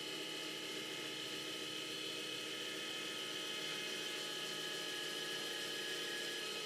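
Electric linear actuator of a homemade patient lift running steadily, its motor and gearing giving a whirring hum as it raises the boom arm through its range of motion.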